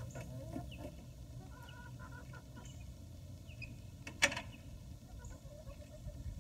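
Backyard hens clucking in short calls, with a single sharp click about four seconds in from the wooden door of the run being handled.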